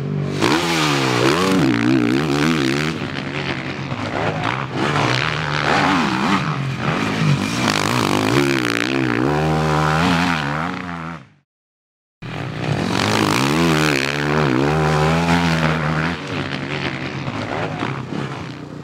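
Motocross bike engine revving hard, its pitch climbing and dropping again and again as the rider twists the throttle and shifts. The sound cuts out for about a second near the middle, then the engine is heard again.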